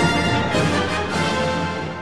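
Orchestral theme music, fading out over the second half.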